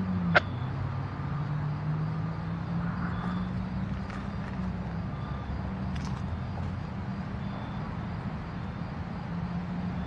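Diesel-electric locomotive engine running steadily at low throttle as it creeps ahead, a low drone, with one sharp click just after the start.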